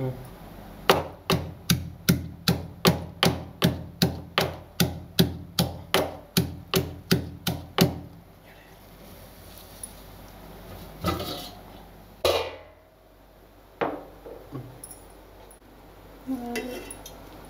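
A stone pestle pounds green chillies in a stone mortar with about twenty steady strikes, roughly three a second, which stop about eight seconds in. A few scattered knocks follow.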